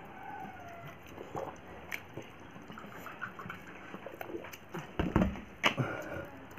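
Faint eating sounds: chewing and small clicks of a plate or utensils, with a louder knock a little over five seconds in and a sharp click just after.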